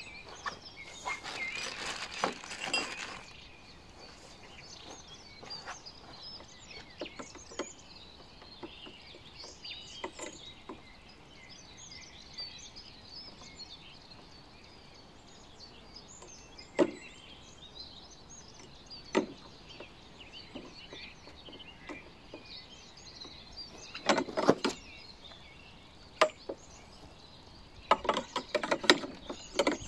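Birds chirping steadily outdoors, with a dense run of chirps in the first few seconds. Sharp clicks and knocks of plastic and metal parts come now and then, bunched in the last third, as the push handle of a Makita cordless lawn mower is handled and fitted.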